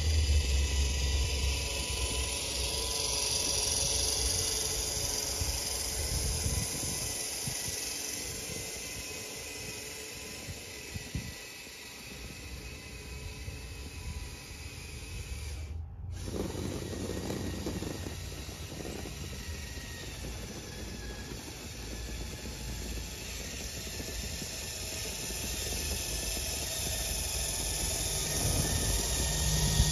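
Radio-controlled Tamiya Clodbuster truck with electric motors running through snow: a steady motor-and-gear whine with hiss. It is quietest about twelve seconds in, then grows louder as the truck drives back toward the microphone. The sound cuts out for an instant about sixteen seconds in.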